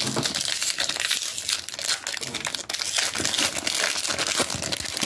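Foil booster-pack wrapper crinkling and crumpling in the hands: a dense, continuous crackle.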